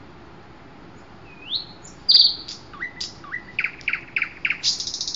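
A songbird singing: a string of separate whistled notes, some sliding up and some down, starting about a second in and running into a fast, high trill near the end.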